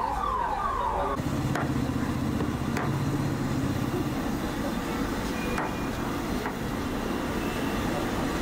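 A repeating falling siren-like wail, about two sweeps a second, cuts off about a second in. Then steady street-stall background noise with a low hum, broken by a few sharp knocks of a cleaver chopping tandoori chicken on a wooden block.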